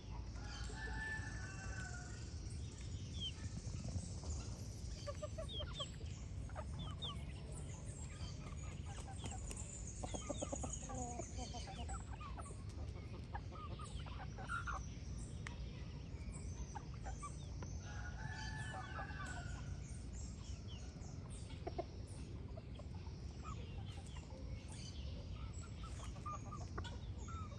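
Chickens clucking in a farmyard, with two longer drawn-out calls, one about a second in and another about two-thirds of the way through. Small birds chirp throughout over a steady low rumble.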